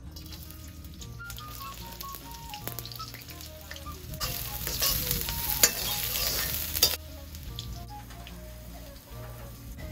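Chopped onion and spring onion hitting hot vegetable oil in a metal wok: a loud sizzle about four seconds in that lasts nearly three seconds, then settles to a quieter frying sizzle.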